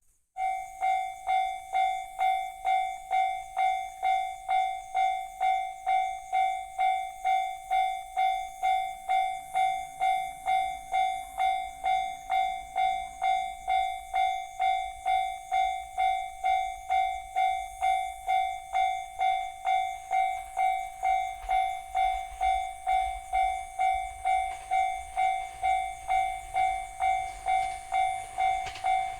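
Japanese level-crossing warning bell of the JR standard type, starting abruptly and ringing an even electronic ding about twice a second. Near the end, a low rumble from the approaching train builds beneath it.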